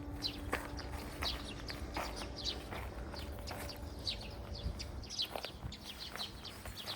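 Small birds chirping: many short, high calls one after another over a low steady rumble, with a faint steady hum through the first half.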